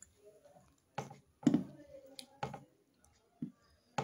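Close-up eating sounds from a meal eaten by hand: about five sharp clicks and taps, the loudest around a second and a half in, as fingers holding a piece of naan scoop chickpea curry from a steel thali.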